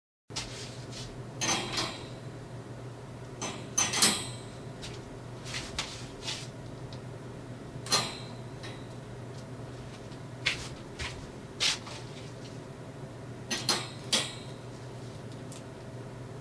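Light clicks and plastic rustles of small packaged cards being hung on the hooks of a metal gridwall display, about ten of them, the loudest about four seconds in, over a steady low hum.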